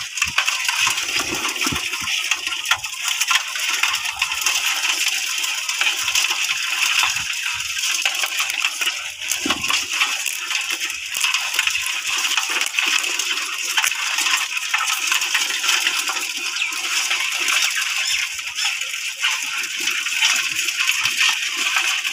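Live freshwater crabs clicking and scratching against a metal basin, with many small clicks throughout, and some splashing as hands move among the crabs in the shallow water.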